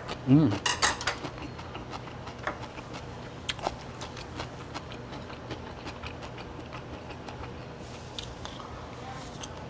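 Close-up eating of fried rice: soft chewing and scattered light clicks of a spoon and chopsticks against a small bowl. A brief hummed 'mm' with a bending pitch comes near the start, followed by a quick cluster of clicks. A steady low room hum runs underneath.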